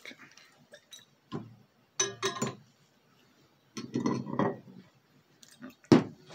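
Glass clinking and knocking as a glass separatory funnel is seated in a metal support ring and a glass flask is set beneath its stopcock, in several short bursts with the sharpest knock near the end.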